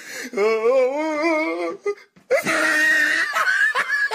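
A person's voice holding a long wavering, whimpering note for about a second and a half, then, after a brief break, a louder strained cry that turns choppy near the end.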